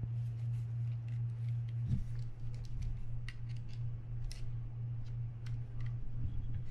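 Scattered light clicks and ticks from the parts of a Penn Spinfisher 750SSM spinning reel being worked by hand, its corroded crosswind gear stuck, over a steady low hum.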